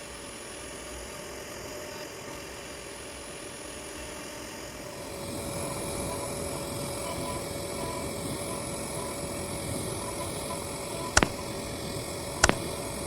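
CNC router spindle running steadily with a 1/16-inch end mill cutting mahogany, a little louder from about five seconds in. Two sharp clicks near the end.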